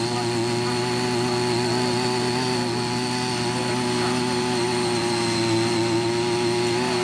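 CY50 mini rotary tiller's 48.6 cc engine running steadily under load, its six-blade rotor digging into untilled soil; the engine note holds an even pitch.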